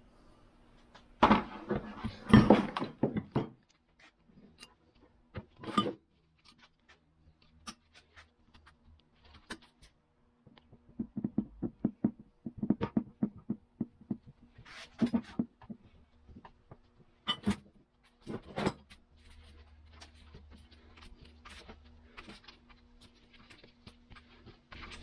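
Metal hand tools knocking, tapping and clinking against a cast-iron Wilton bullet vise body as it is taken apart, with a run of quick taps in the middle.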